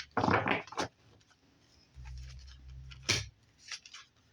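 Tarot cards being shuffled and drawn by hand: a short rustle at the start, a low rubbing sound, and a sharp click of a card about three seconds in.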